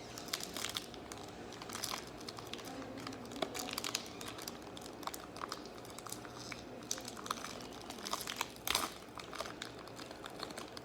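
Trading card pack wrapper crinkling and crackling as it is handled and torn open by hand, with a louder crackle near nine seconds in.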